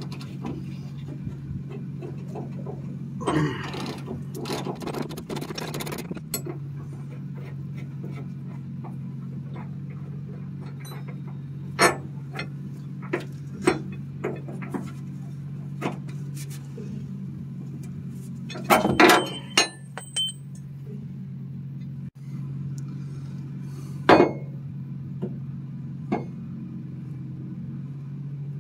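Hand tools on a pickup's rear leaf-spring shackle: a socket ratchet clicking as it works the shackle bolt, then scattered metallic clinks and knocks as the bolt and shackle come off, the loudest a ringing clank about two-thirds of the way through. A steady low hum sits underneath.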